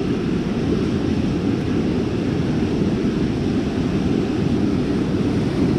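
Steady rush of ocean surf breaking and washing up the beach, with wind rumbling on the microphone.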